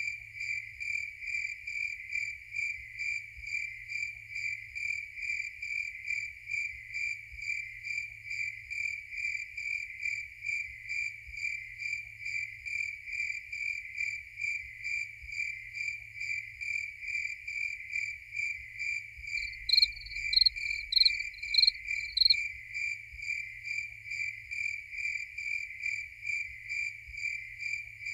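Crickets chirping in a steady, even pulse of roughly two to three chirps a second. About two-thirds of the way through, a louder, higher-pitched chirp repeats six times over some three seconds.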